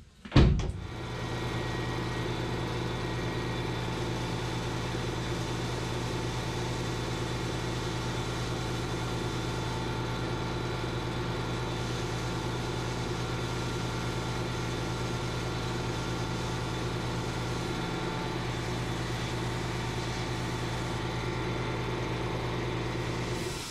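Sandblast cabinet running: a steady electric motor hum over an even hiss of blasting. It switches on with a click just after the start and cuts off suddenly at the end.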